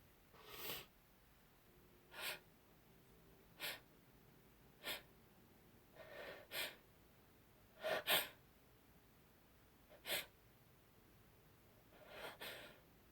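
A woman's short, sharp sniffs and stifled sneezes through the nose, about eight in all and some in quick pairs. The loudest pair comes about eight seconds in.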